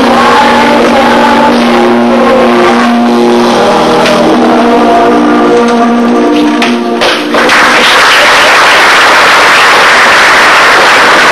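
A children's choir song with instrumental backing ends on long held notes. About seven and a half seconds in, the audience starts clapping, a loud, dense applause.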